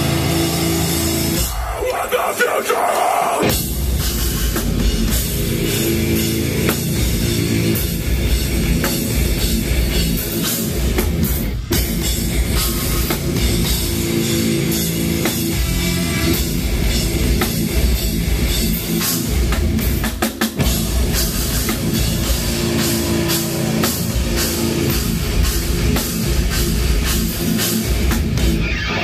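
A deathcore band playing live at full volume: heavy distorted guitars, bass and fast drums with cymbals. There is a brief break in the drums and low end about two seconds in, after which the band comes back in.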